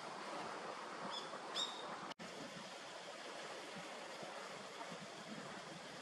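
A common kingfisher giving two short, high, sharp call notes about half a second apart, about a second in, the second louder. A steady rushing background hiss runs under it, briefly cutting out about two seconds in.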